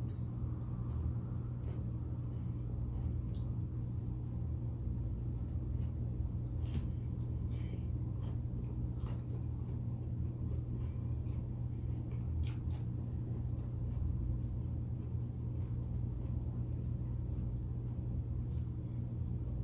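A steady low hum, with faint scattered clicks and smacks of someone chewing food.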